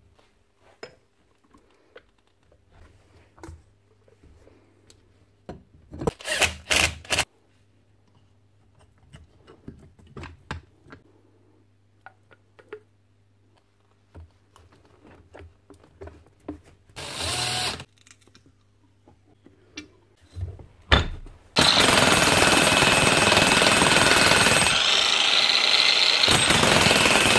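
Metal parts clicking and knocking as a Hikoki demolition hammer is put back together, with a few louder short bursts of clatter. About three quarters of the way through, the repaired hammer starts and runs steadily, its chisel hammering, much louder than everything before it.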